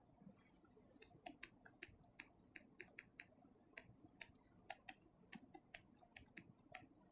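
Faint, irregular light clicks, two or three a second, against near silence.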